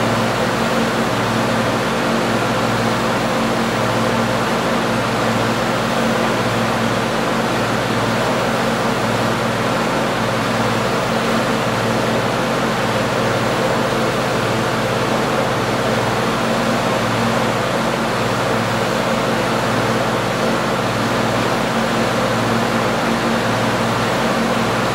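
Tractor engine running at a steady speed, an unchanging low hum with no revving.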